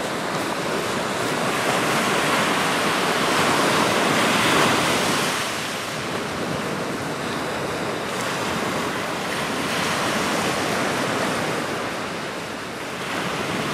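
Pacific surf breaking and washing up a cobble beach, a steady rushing wash that swells louder in waves, most strongly a few seconds in and again near the two-thirds mark.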